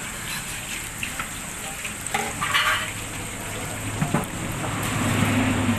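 Food sizzling as it fries in oil in a wok, with a few sharp clinks of a cooking utensil and a brief louder hiss about two and a half seconds in. A vehicle's low engine hum grows near the end.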